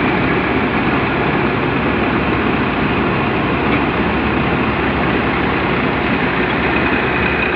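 Tractor-driven Mayur thresher running steadily while threshing isabgol, a loud, even mechanical din, with the Massey Ferguson 241 DI tractor's engine running under it at light load.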